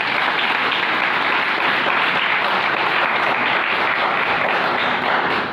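Audience applauding, a dense clatter of many hands clapping that dies down at the end.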